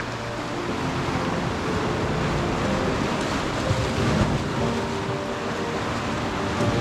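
Sea surf washing and breaking against rocks, a steady rushing noise, with wind buffeting the microphone.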